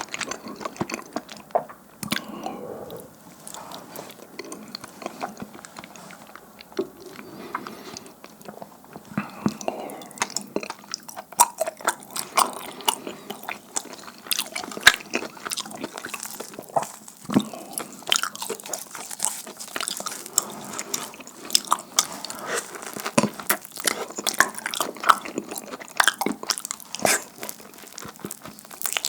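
Close-up eating sounds: chewing and biting into sticky, chewy fried dumpling pancakes, with wet smacking and irregular crisp snaps.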